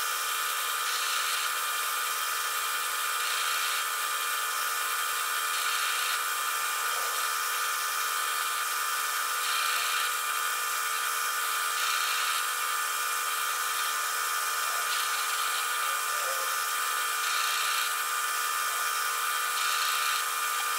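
Atlas metal lathe running under power during a thread-cutting pass at 16 threads per inch, its gear train and lead screw giving a steady whir made of several constant tones.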